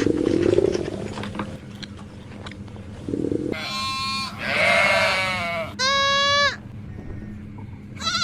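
Sheep bleating: a short call, then a long wavering bleat and a shorter steady one, about halfway through. A brief noisy sound comes right at the start.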